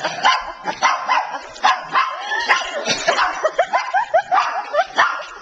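Dogs barking repeatedly and excitedly as they go after a puppy in a tug-of-war over a toy. About two thirds of the way in comes a quick run of about five short, high yelps.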